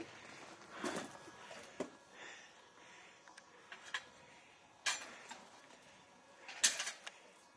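A few scattered footstep scuffs and crunches on rocky, gravelly ground, several seconds apart, over a faint steady outdoor hiss. The sharpest come about five seconds in and near the end.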